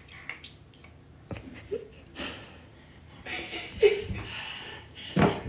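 A baby making short little vocal sounds and soft giggles, with soft wet pats and clicks from hands playing in yogurt.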